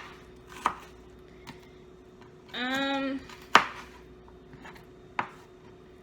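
Kitchen knife chopping onion on a cutting board: about three slow, separate chops, the one in the middle loudest. A short hum from a person comes just before the loudest chop.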